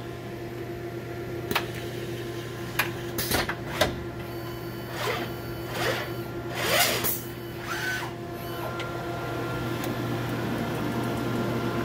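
DEK Horizon 02i solder paste stencil printer running its automatic print cycle. A steady machine hum runs under a few sharp clicks. About halfway through come several brief whirs as the vision system moves to capture the stencil fiducials. The level rises slowly near the end.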